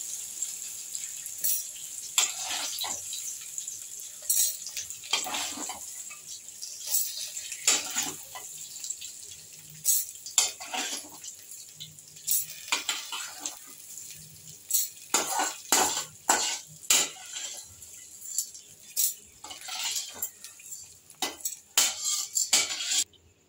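Steel slotted ladle scraping and clinking against a stainless-steel kadai and tapping against a steel mixer jar as fried urad dal and green chillies are scooped across, in many irregular strokes over a steady faint hiss.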